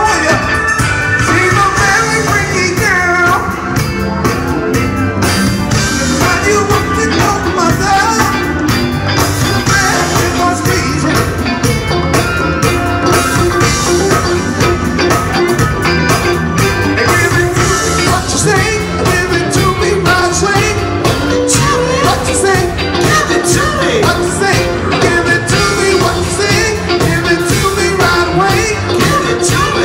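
Live band playing with a lead singer: drum kit, electric guitars and bass, and congas, at a steady loud level with no break.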